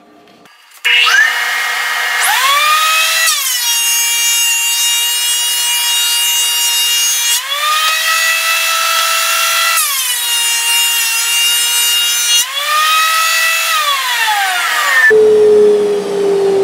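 Delta 12-inch portable thickness planer switched on, its motor whine rising as it spins up. Two boards are then fed through one after the other. Each drops the pitch for about four seconds as the cutterhead takes a pass, before the whine climbs back. Near the end it is switched off and the whine falls away as it winds down.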